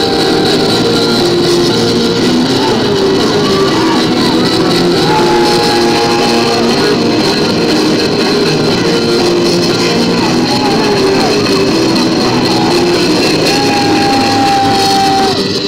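Loud rock music, with a lead line holding long notes that bend at the ends, twice.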